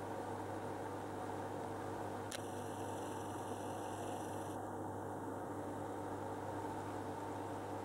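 Steady mechanical hum of aquarium equipment, with one faint click a little over two seconds in.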